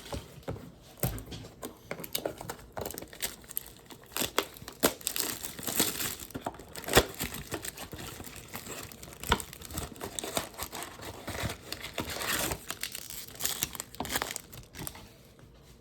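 Plastic and foil wrapping crinkling and tearing as trading card blaster boxes and their packs are opened, a run of irregular crackles and rustles.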